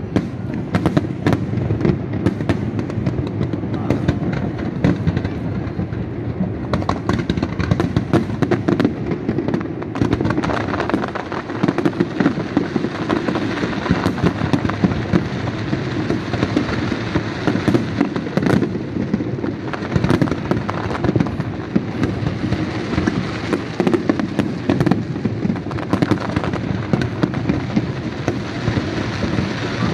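Aerial fireworks display: a continuous barrage of shells bursting, with many sharp bangs and crackles every second.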